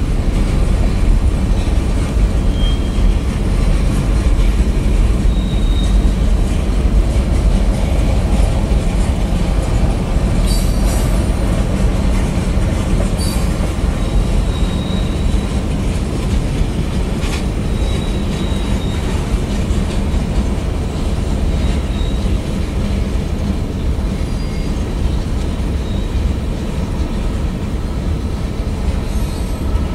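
Freight train cars rolling past: a steady low rumble of steel wheels on rail, with brief high-pitched wheel squeals and a few sharp clanks between about ten and seventeen seconds in.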